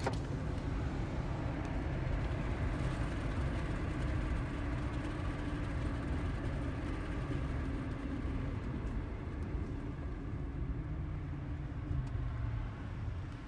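Car being driven, heard from inside the cabin: steady engine and road noise.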